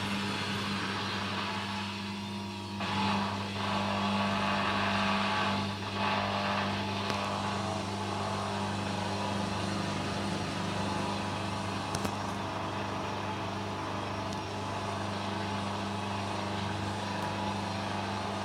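Hoover Dynamic washing machine on its final spin: a steady motor hum with the drum's whirr over it, cutting off suddenly near the end.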